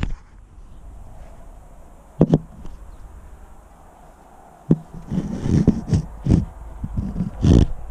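Irregular bumps and crunches close to the microphone of a camera worn by a cat, as it walks through fresh snow. A short pair about two seconds in, a single sharp knock near the middle, then a run of steps in the last few seconds.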